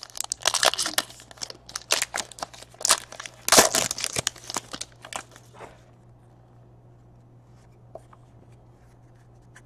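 A trading-card pack's foil wrapper being torn open and crinkled by hand, a quick run of crackles and rips that stops about six seconds in. A faint steady low hum lies under it.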